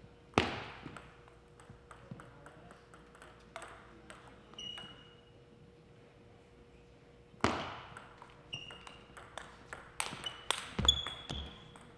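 Table tennis ball clicking off paddles and the table in play, with two sharp hits that echo through the hall, one about half a second in and one about seven seconds in, and a quick run of ball strikes in the last few seconds. Short shoe squeaks and a few heavy footfall thumps come near the end.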